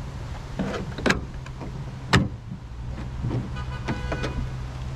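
Clicks and knocks from the plastic storage-compartment lid in a 2023 Chevrolet Colorado ZR2's tailgate as it is unlatched and opened by hand. A couple of clicks come about a second in, the loudest knock at about two seconds, and a short rattle of clicks near the end, over a steady low hum.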